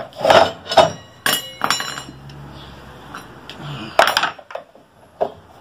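Metal clinks and knocks as bent flat steel rings are handled and fitted onto the end of a PVC pipe on a metal workbench, two of the clinks ringing on briefly, about a second in and again near four seconds in.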